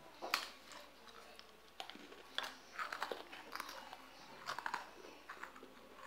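Biting into and chewing a crisp cracker right at the microphone, a run of irregular crunches and chewing, made loud on purpose in imitation of mukbang eating sounds.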